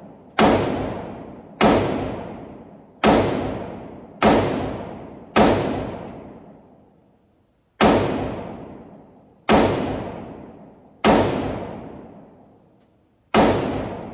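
AR-style rifle firing nine single shots at an irregular pace, one every one to two and a half seconds, each shot followed by a long fading echo.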